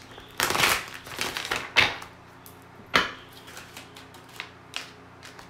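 A deck of oracle cards being shuffled and a card pulled. There is rustling for the first couple of seconds, then two sharp card slaps about a second apart and a few lighter ticks.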